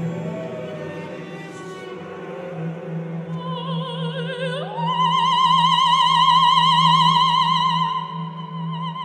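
Operatic soprano singing over a steady low sustained drone. About halfway through she glides up to a high note and holds it with wide vibrato; this is the loudest part.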